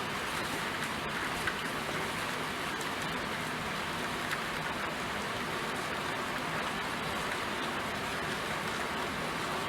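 Steady rain falling, an even hiss of many drops with a few individual drops ticking out now and then.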